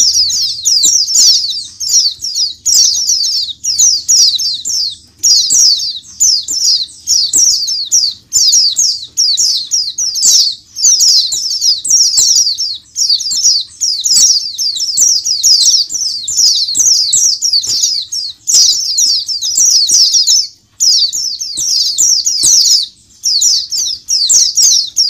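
A large flock of white-eyes (pleci) twittering all at once: a dense, high-pitched chorus of rapid chirps that overlap without pause, broken only by a couple of brief gaps near the end.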